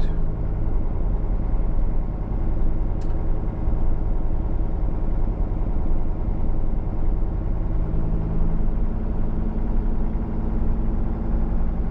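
Campervan engine and road noise heard from inside the cab while driving: a steady low drone.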